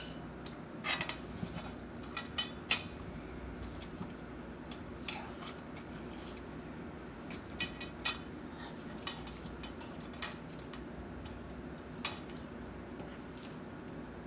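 A metal utensil clinking and scraping against a stainless steel mixing bowl as stiff chocolate chip cookie dough is stirred by hand, in irregular clinks, sometimes one, sometimes two or three close together.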